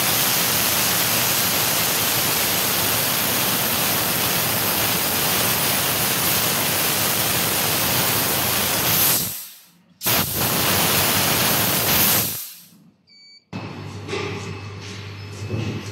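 Fiber laser cutting stainless steel sheet: a steady, loud hiss of assist gas blasting from the cutting head nozzle. The hiss cuts out briefly about nine seconds in, resumes for about two seconds, then stops, leaving a quieter low hum.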